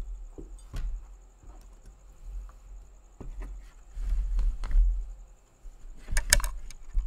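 Handling sounds on a painting table: light knocks and taps as a painting board is moved around and a water jar with a brush in it is picked up. There is a low rumble about four seconds in, and the loudest sound is a quick cluster of clicks about six seconds in.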